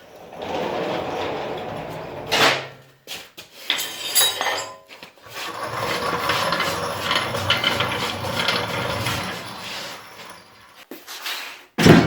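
Workshop handling noise: scraping and rolling with a short rattle and two sharp knocks, one about two and a half seconds in and one just before the end.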